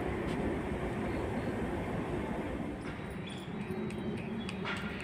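Steady low rumbling background noise with a few faint clicks and taps.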